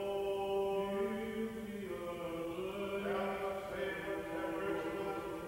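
Orthodox liturgical chanting for the christening service: a voice sings long held notes, stepping to a new pitch every second or two.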